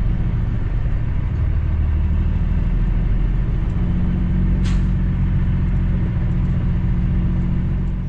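Cummins ISX diesel of a 2008 Kenworth W900L running at low speed as the truck creeps along, heard from inside the cab; the engine note shifts slightly about halfway through. A short click sounds a little past the middle.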